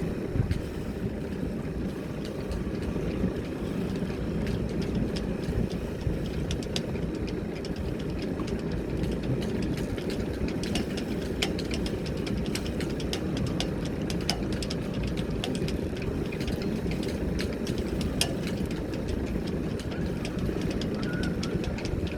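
Sailing yacht's inboard engine idling in a steady low rumble, with scattered light clicks and knocks over it.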